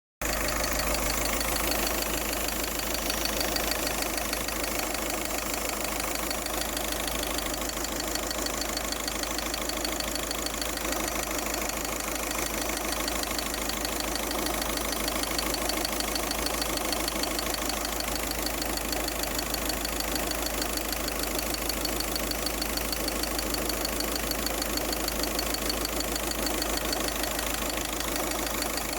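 An engine idling steadily with a constant hissing noise over it and a fast, even ticking rhythm.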